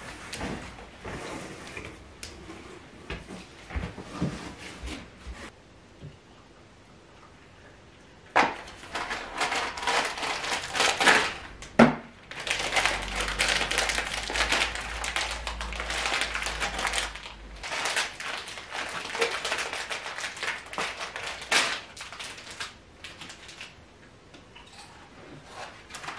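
Household items being handled, with light rustles and clicks. After about eight seconds comes a long run of loud crinkling and rustling, like plastic packaging being handled. Quieter handling noises follow near the end.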